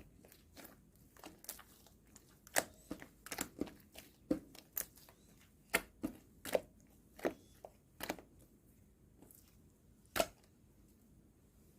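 Slime topped with round clay bits being squished and pulled, giving irregular sharp crackling pops and snaps, about one or two a second. The pops stop about ten seconds in.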